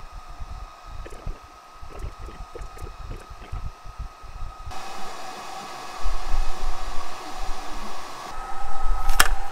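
AlgoLaser DIY Kit diode laser engraver cutting plywood: steady fan-like blowing with the motors driving the laser head in many quick short moves. It grows louder about two-thirds of the way through, and there is a sharp click near the end.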